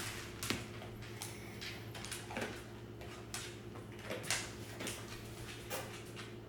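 Irregular soft clicks and taps, one or two a second, over a steady low hum.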